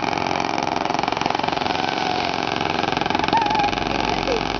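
Bangka outrigger boat's engine running steadily with a fast, even beat.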